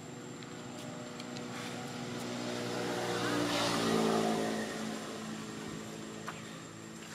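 A motor vehicle's engine passing by, growing louder to a peak about four seconds in and then fading away.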